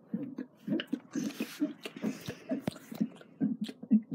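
A child's voice making a rapid string of short, low vocal sounds, about three a second, with small mouth clicks between them.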